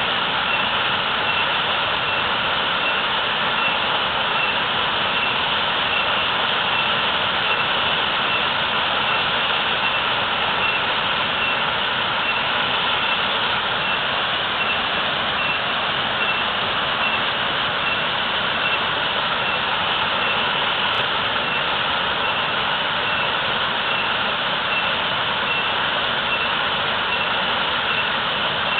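A natural waterfall rushing: a steady roar of heavily falling water, unchanging throughout.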